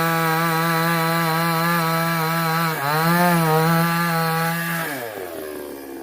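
Chainsaw running at high revs with a steady, even pitch. The pitch dips briefly about three seconds in and recovers, then falls away near the end as the engine slows.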